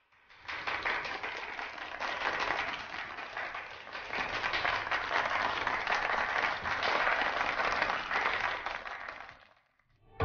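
A roomful of people clapping in applause, starting about half a second in and fading away near the end.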